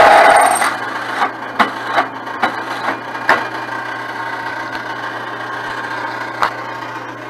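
Benchtop drill press with a half-inch bit cutting through a scrap steel bracket. The loud, harsh cutting noise stops under a second in, leaving the motor's steady hum and a few sharp clicks and taps.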